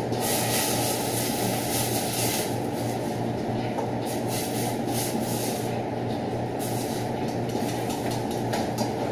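Commercial kitchen extractor hood fan running with a steady low hum and rumble. A brighter hiss sits on top for the first two seconds or so.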